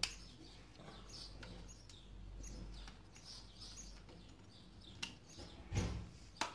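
Small birds chirping in quick, repeated high notes. A few sharp clicks of a screwdriver on metal carburetor parts come in with them, the loudest near the end.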